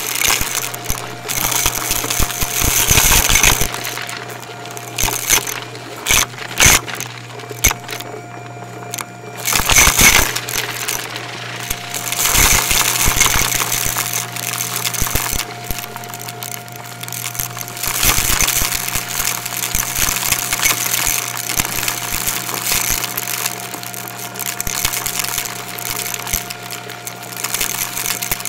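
Shark Navigator upright vacuum running with a steady motor hum while sucking up crunchy debris, which rattles and crackles through the machine in rapid, irregular clicks.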